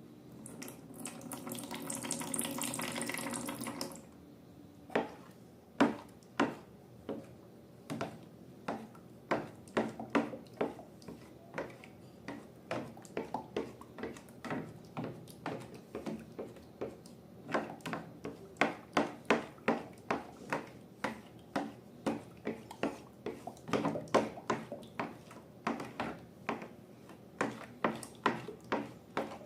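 Liquid pouring for about four seconds, then sticky slime being stirred and worked in a container, giving a run of wet clicks and pops, about two a second.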